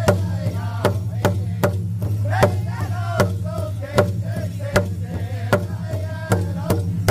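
Powwow drum group: several singers beating a big powwow drum with padded sticks in a steady beat, about two and a half strokes a second, while singing together in high, wavering voices.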